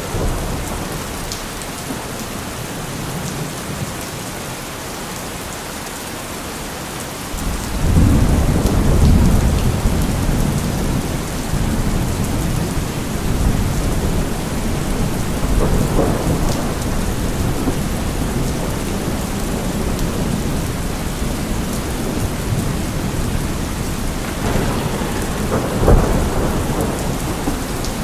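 Steady heavy rain falling, with low rolling thunder that sets in about seven seconds in and keeps rumbling, swelling twice more, the last time near the end.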